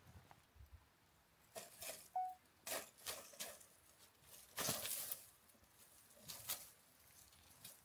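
Dry grass, twigs and leaves rustling in short, irregular bursts as a cat moves and paws through the undergrowth, the loudest burst about five seconds in. A brief faint chirp sounds about two seconds in.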